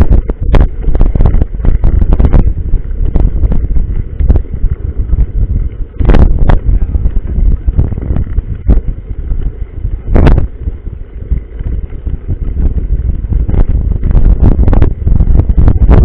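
Mountain bike being ridden over a rough trail: heavy wind buffeting on the microphone with frequent knocks and rattles from bumps, busiest at the start and near the end.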